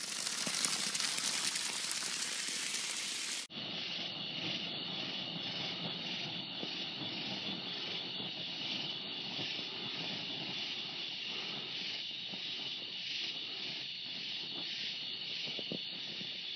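Methane from a gas-contaminated water well burning at its vent pipe: a steady rushing hiss. About three and a half seconds in, the sound drops out for a moment and returns as a duller steady rush with a steady high-pitched chorus over it.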